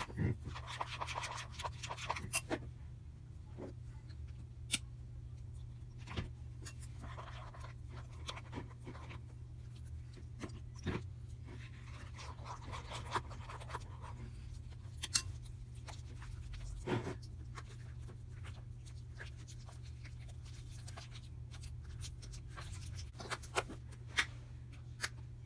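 Spoon scraping and stirring pink slime in a bowl for the first couple of seconds, then scattered sticky clicks and pops with brief scraping as the slime is worked by hand. A steady low hum runs underneath.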